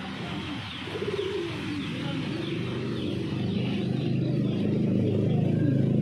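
Domestic pigeons cooing, with low bending calls mainly about a second in, and faint small-bird chirps above. A steady low engine hum builds through the second half and becomes the loudest sound.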